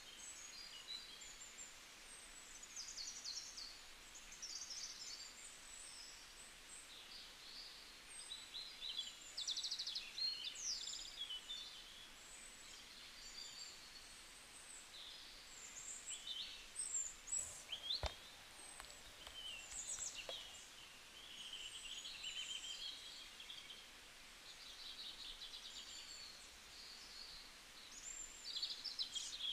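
Many small birds chirping and twittering over a faint background hiss, with short high calls and trills following one another without a break. A single sharp click comes about eighteen seconds in.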